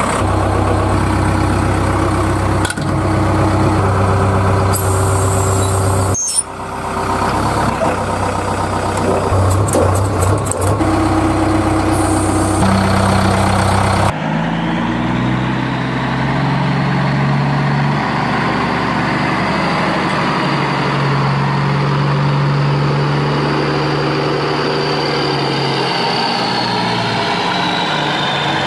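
Heavy vehicle diesel engines running steadily. The sound breaks off briefly about six seconds in, then switches abruptly to a different engine note about halfway through. Near the end a high whine falls in pitch.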